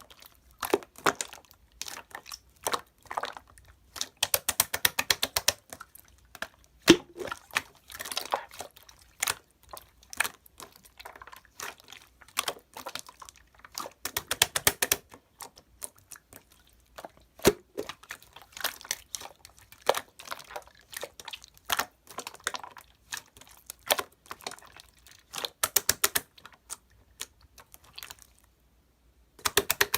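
Close-up crunching and crinkling: irregular sharp clicks and crackles, with several runs of rapid crackling.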